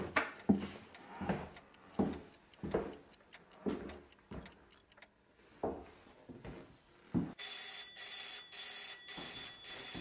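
Footsteps of sneakers on a wooden hallway floor, a step about every three-quarters of a second, over the fast ticking of clocks. About seven seconds in the steps stop and a telephone starts ringing, one steady ring that carries on.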